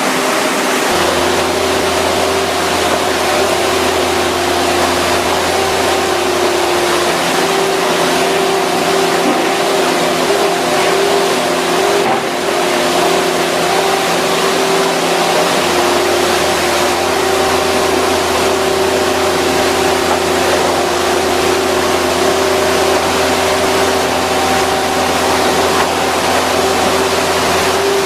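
An engine running steadily at constant speed, a hum with a strong hiss over it.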